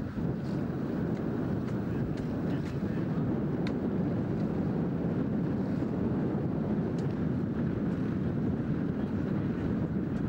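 Steady wind buffeting the camcorder microphone, an even rushing noise with no change in level.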